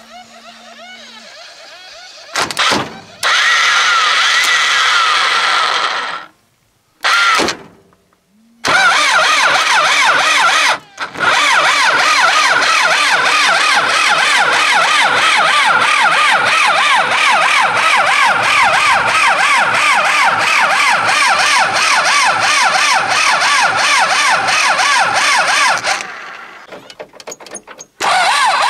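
Cold start of a UTB 650 tractor's diesel engine: the starter motor cranks it in short bursts, then in one long crank with a rhythmic pulsing whine, stops near the end and starts cranking again.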